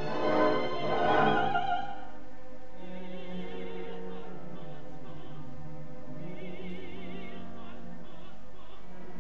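Operatic soprano with orchestra. A full, louder passage in the first two seconds gives way to a sparser, quieter stretch of held notes with a wavering vibrato.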